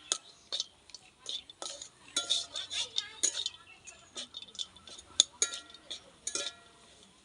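A metal spoon or spatula knocking, clinking and scraping against a cooking pan while the samosa filling is stirred: irregular knocks, several of them ringing briefly.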